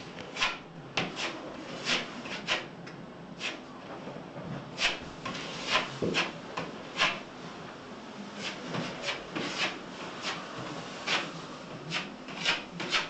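Short, irregular scraping strokes of a hand tool worked across a plasterboard wall being filled with body filler, two dozen or so strokes with brief gaps between them.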